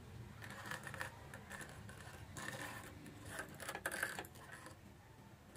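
Faint, irregular clicks and light taps, clustered from about half a second in until near the end.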